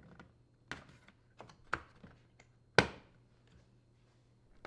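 Several light clicks and knocks as a replacement dishwasher door hinge is handled, set onto its hinge pin and lined up against the inner door panel, the sharpest knock coming near three seconds in.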